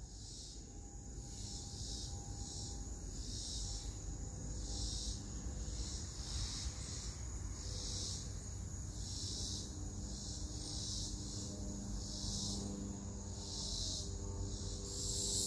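A chorus of insects shrilling high, swelling in pulses about once a second, with a faint low steady hum underneath.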